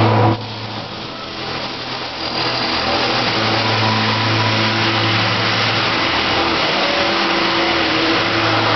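Electric arc welding on a steel trailer frame: the steady frying hiss of the welding arc over a low electrical hum. It drops away just after the start and builds back to a steady sizzle from about two and a half seconds in.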